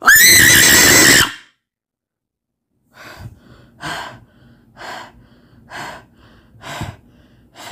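A person's high-pitched shriek lasting about a second, then after a short silence heavy, rapid breathing, about one breath a second.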